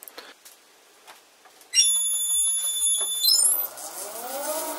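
Metal lathe starting up. A steady high-pitched electronic whine from its motor drive comes on about two seconds in and steps up. The spindle motor then spins up with a whine that rises in pitch.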